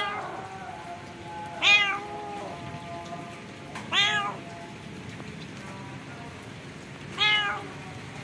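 A stray cat meowing, four short meows a couple of seconds apart, over soft background music.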